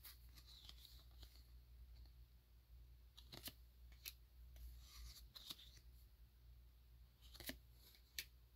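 Faint sliding and clicking of glossy holographic photo cards being shuffled through by hand, with a few sharp ticks (about three and a half, four, seven and a half and eight seconds in) as card edges snap against each other.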